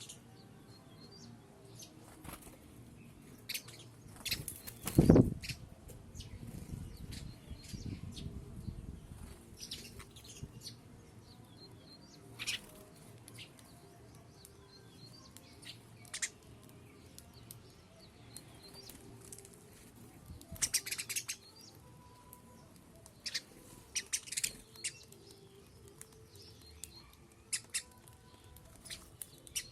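Birds feeding on grain: scattered wing flaps and short taps, with the loudest flutter about five seconds in and a few faint chirps.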